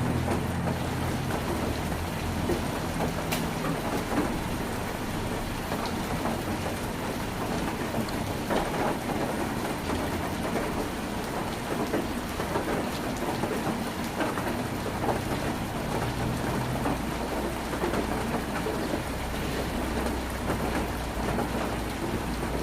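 Heavy rain drumming steadily on a tin roof, a dense patter of drops. Under it a low rumble fades out over the first few seconds and comes back in the second half.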